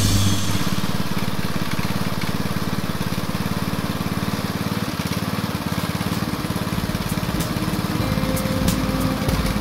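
Small petrol-engine water pump running steadily, its engine firing in a fast, even beat while it pumps water out of a pond.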